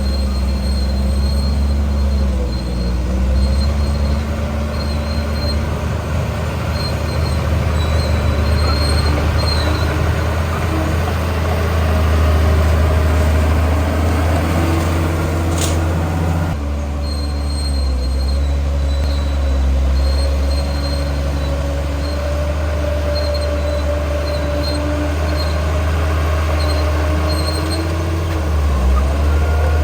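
Crawler bulldozer's diesel engine running under load, with a continual squealing from its steel tracks. The sound changes abruptly about halfway through.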